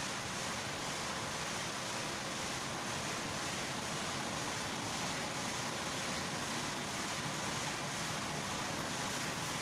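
Steady, even rushing noise with no distinct events, like wind or surf.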